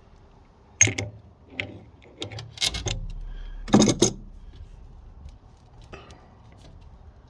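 A few separate metallic clinks and knocks of tools and metal parts being handled, the loudest about four seconds in.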